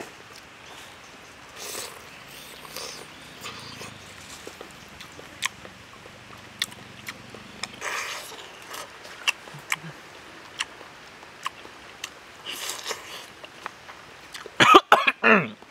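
Close-up eating sounds of a person biting and chewing grilled pork sate: scattered wet clicks and lip smacks. Near the end comes a cluster of louder, pitched mouth noises.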